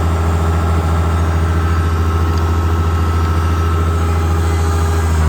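Farm tractor engine idling steadily, a low even drone with a faint steady whine above it.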